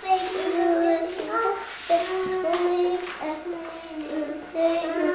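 A young child singing a simple tune, holding each note for a moment and stepping up and down in pitch.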